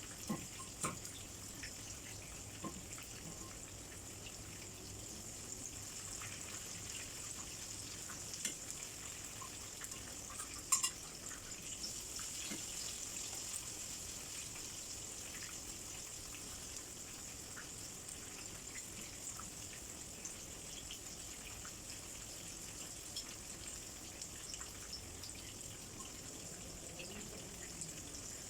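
Butterfly shrimp frying in hot oil: a steady sizzle with scattered small pops and one louder click about eleven seconds in.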